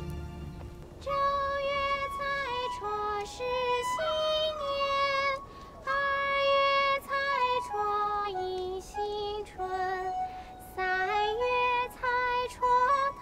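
Soundtrack music: a high female voice singing a slow melody in long held notes with small slides between them, coming in about a second in, in short phrases with brief pauses.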